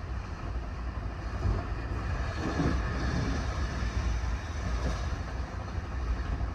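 Sleeper train running along the line, heard from aboard a passenger coach: a steady low rumble of wheels on rail with an even rushing noise over it.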